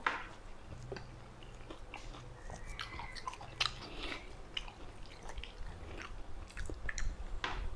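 A man chewing a mouthful of eel curry close to a clip-on microphone: scattered small clicks and mouth smacks.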